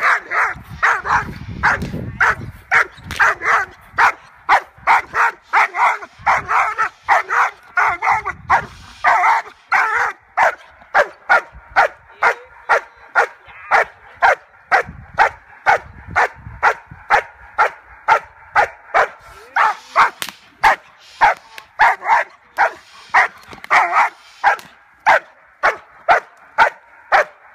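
German Shepherd Dog barking in a steady, rapid run of about two to three barks a second. It is barking at a helper who is agitating it with a stick, as in protection (bite-work) training.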